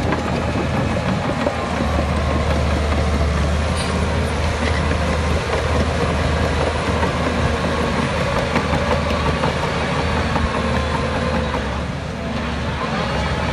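Heavy diesel earthmoving equipment running steadily with a deep, constant engine hum, easing slightly near the end.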